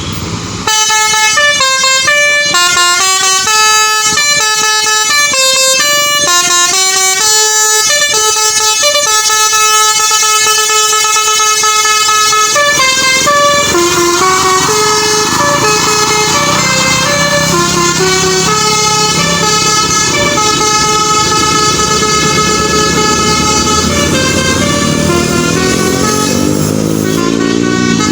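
Tour bus's telolet basuri air horn, driven by a DAV module, playing a fast melody of stepped notes, several tones at once. About halfway through a low rumble runs beneath it, and near the end the notes glide up and down in pitch.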